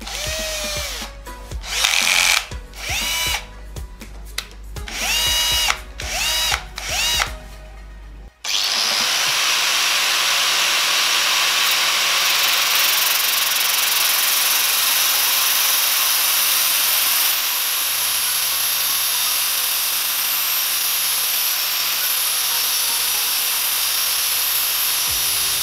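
Cordless drill run in a series of short trigger pulls, its motor whine rising and cutting off each time. After about eight seconds, a metal cylinder spun by the drill is held against a spinning abrasive grinding disc, making a loud, steady grinding hiss for the rest of the time.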